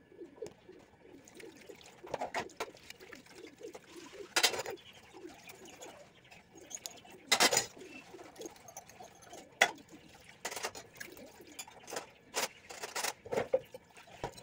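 Dishes and utensils being washed by hand at a steel sink: repeated sharp clinks and clatters, the loudest about four and seven seconds in. Pigeons coo steadily in the background.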